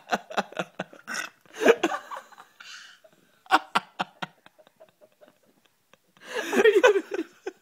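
Laughter in several bouts of short, quickly repeated chuckles, with a longer, louder stretch near the end.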